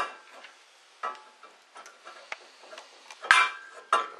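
Scattered clicks and knocks as wires and wire nuts are handled against a metal light-fixture housing, with sharper knocks at the start, about a second in, and twice just after three seconds.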